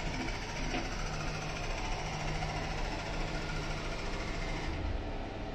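CNC vertical mill's Z axis driving the spindle head, with a drill chucked, down toward the tool setter for an automatic tool-length touch-off. It makes a steady mechanical whir whose higher part drops away near the end.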